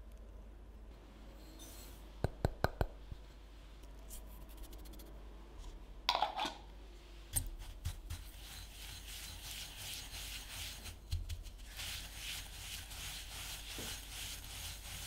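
A wire whisk scraping egg yolks into granulated sugar in a glass bowl, a gritty rhythmic scratching that gets stronger about twelve seconds in. Before it come a few sharp clicks about two seconds in and a short rustle around six seconds.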